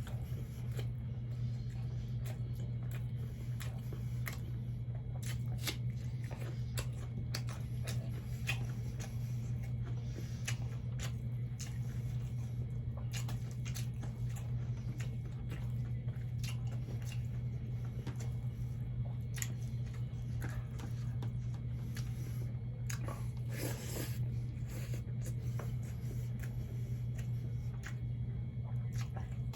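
Close-up chewing and mouth sounds of someone eating fried catfish with rice: many small wet clicks and smacks, with a slightly longer, louder noise about 24 seconds in, over a steady low hum.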